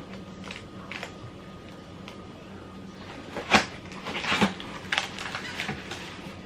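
The seal on a cardboard coffee-maker box being broken and the box pulled open: a series of short rips and rustles, the loudest about three and a half seconds in, with a cluster just after four seconds.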